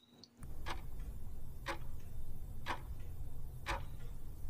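Countdown-timer clock sound effect ticking about once a second, over a low steady hum.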